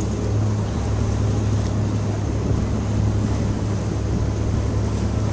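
Pontoon boat's outboard motor running steadily under way, a constant low drone.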